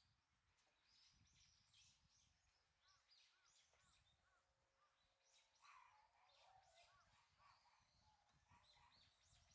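Near silence with faint chirps of small birds throughout, including a run of four short repeated notes about three seconds in.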